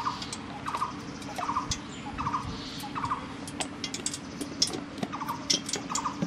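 A bird calling repeatedly, one short call about every three quarters of a second, over light crackling from ghee heating in an aluminium pot and a steady low hum.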